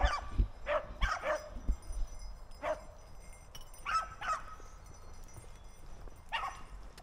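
Beagles baying as they run a rabbit: about eight short, yelping bawls from more than one hound, several bunched together in the first second and a half, then spread out with a last one near the end.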